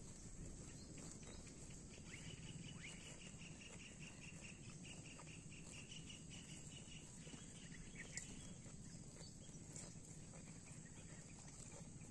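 Quiet field ambience: a faint, rapidly pulsed insect chirping starts about two seconds in and stops some five seconds later, with a brief chirp just after, over a steady low rumble.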